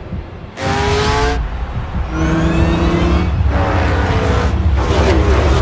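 Stock-car racing engines at full speed: a run of engine notes rising in pitch as cars accelerate, over a steady low rumble, with one car passing by near the end, its pitch dropping.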